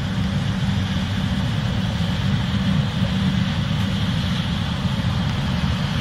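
Case IH 8250 combine and a tractor pulling a grain cart running together while harvesting corn, the combine unloading grain into the cart on the go. A steady, deep engine drone with no change in pace.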